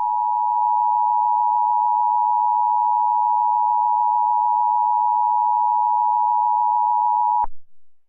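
Emergency Alert System attention signal: a steady, loud two-tone alert tone that holds unchanged and cuts off abruptly near the end.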